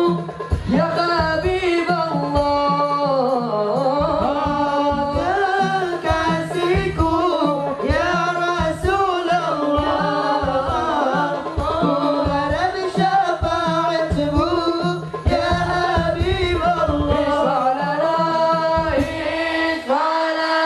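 Male voices singing an Islamic sholawat through microphones and a PA, over steady drum accompaniment. A second singer joins the lead singer about halfway through, and the drums pause briefly near the end.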